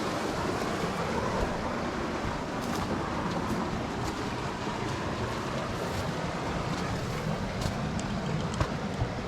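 Steady rushing water of a creek or waterfall, with a few faint clicks near the end.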